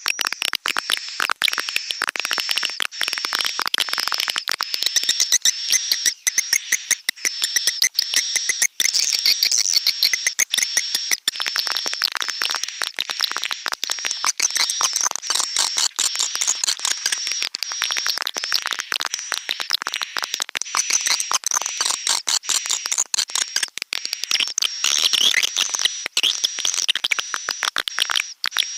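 Recorded swiftlet calls: a dense, unbroken chorus of rapid, high-pitched twittering chirps and clicks from many birds at once.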